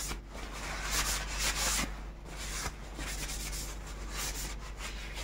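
Disposable cloth rubbing oil into the wooden handles of kitchen utensils: a run of uneven rubbing strokes, a little louder about a second in.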